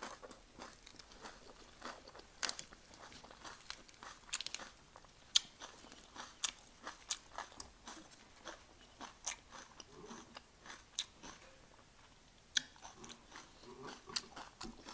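Chewing and biting into a bánh xèo, a crispy rice-flour crepe, wrapped in fresh lettuce and herbs: many sharp, irregular crunches.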